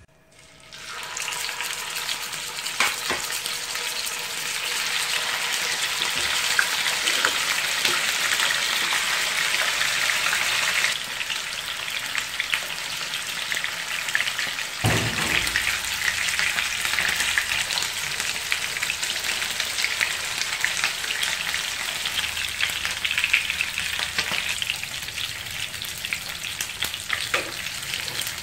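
Spice-coated chicken quarters shallow-frying in hot oil in a non-stick pan: a steady, dense sizzle and crackle that starts about a second in. A few knocks are heard, with a low thump about halfway through.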